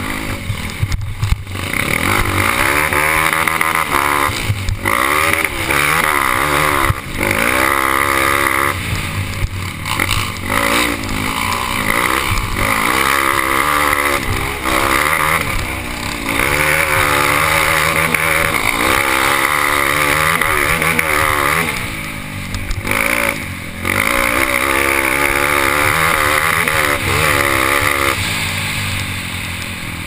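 Dirt bike engine running while riding a rough trail, the revs rising and falling over and over as the throttle is worked, with a couple of brief drops in revs.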